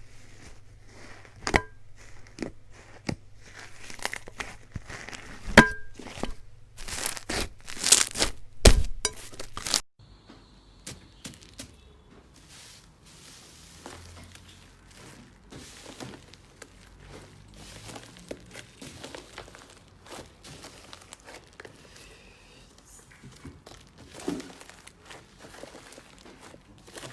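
Slime being squeezed and pressed by hand, giving crinkly crackling with sharp pops and clicks. The pops are loudest in the first ten seconds, then change abruptly about ten seconds in to softer, quieter crackling.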